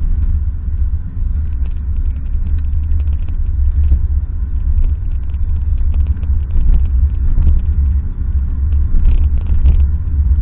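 Steady low rumble of a car's road and engine noise, heard from inside the cabin while driving at road speed.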